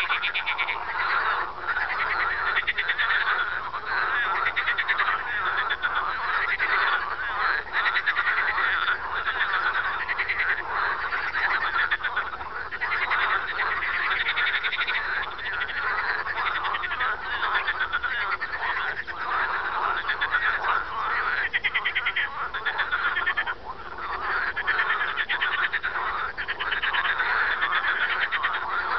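Frogs calling in a dense evening chorus: fast, rattling pulsed calls overlap without a break, and one frog's laugh-like call stands out above the rest.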